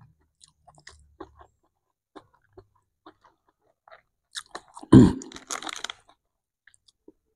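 Close-miked chewing of a nasi padang meal eaten by hand, with small wet mouth clicks scattered throughout. About five seconds in comes a louder crackling burst lasting about a second.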